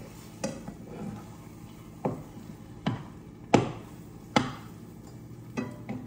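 A utensil knocking against a frying pan while scrambled eggs are stirred, about seven sharp, irregular knocks, the loudest about three and a half seconds in.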